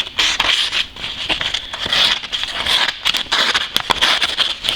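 A freshly sharpened knife slicing through a sheet of paper, a run of scraping, crackling paper sounds with quick small clicks. It is a cut test of the new edge.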